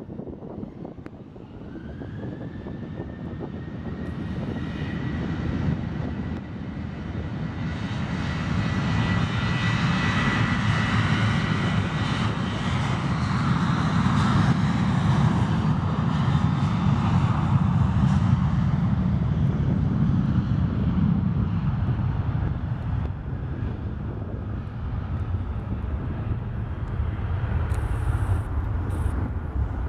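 Boeing 737 jet engines spooling up with a rising whine that settles to a steady high tone, then running at takeoff power as the airliner accelerates past, the noise building to a loud peak midway and easing off as it rolls away.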